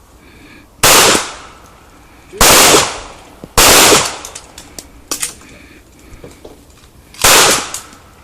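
Handgun shots from several shooters on a firing line: four loud shots at uneven intervals, each ringing out briefly, with a few fainter cracks in between about midway.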